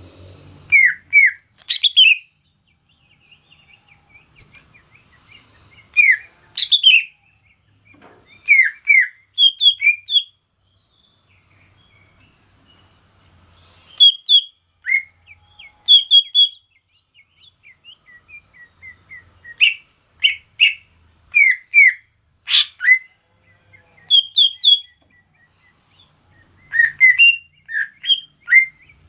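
Green leafbird (cucak ijo) singing: short, loud, sliding whistled notes, several in quick succession, in bursts every few seconds with pauses between.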